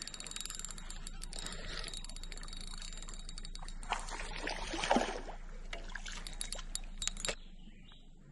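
Hooked Oscar cichlid splashing at the water's surface as it is landed, mixed with the clicking and rattling of a metal fish lip-grip and handling noise. A louder splash comes about five seconds in, and the noise dies down near the end.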